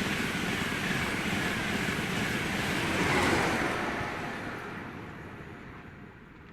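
A train passing through at speed: a rushing noise that peaks about three seconds in, then fades away.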